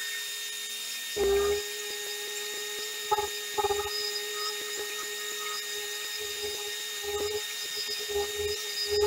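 Random orbital sander running steadily with a high whine, sanding the worn old finish off a wooden cedar chest. A louder low scuffing comes a few times as the pad is worked over the wood.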